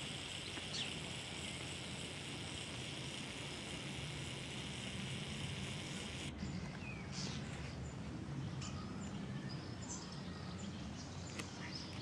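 A flock of birds calling outdoors: a dense, continuous high chatter that cuts off abruptly about six seconds in, followed by scattered short calls, over a steady low rumble.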